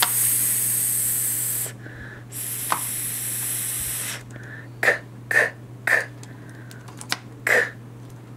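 A woman hisses a drawn-out 's' phonics sound twice, each lasting nearly two seconds, then says about five short 'k' sounds, sounding out the letters s and k of 'skunk'.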